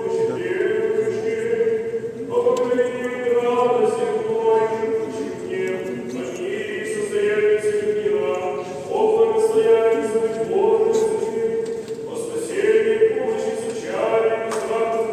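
Choir singing without accompaniment: slow, sustained chords over a steady held low note, shifting every second or two.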